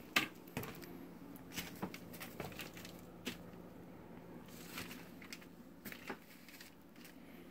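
Scattered crinkles, crunches and light knocks of someone moving through a floor strewn with paper, plastic bags and boxes, about a dozen irregular short sounds, the sharpest near the start.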